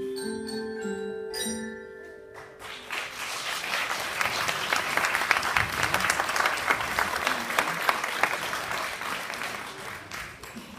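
Children striking the last few ringing notes on classroom xylophones, then audience applause that starts about two and a half seconds in and fades near the end.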